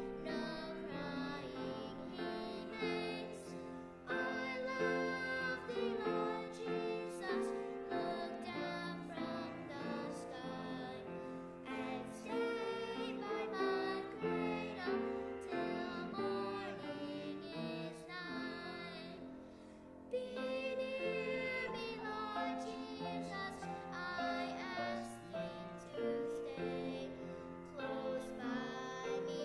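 A young girl and a man singing a slow duet together in held, sustained notes, her high voice over his lower one, with short breaks about four seconds and twenty seconds in.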